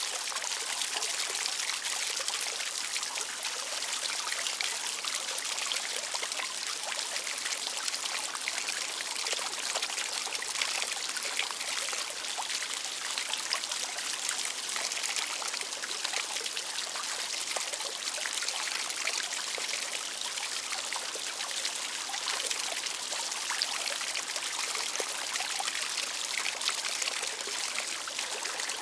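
Small outdoor water fountain: water splashing and trickling steadily into its basin.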